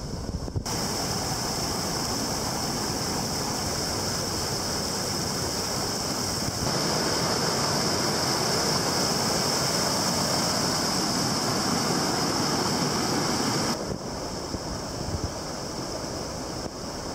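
Steady rush of whitewater pouring over a small waterfall and rapids in a creek. It is louder for several seconds in the middle, then drops back.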